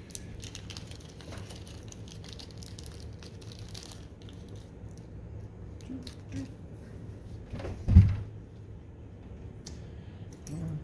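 Small clicks and scraping from hands working the parts of a pin-tumbler lock while taking it apart, with one louder knock about eight seconds in.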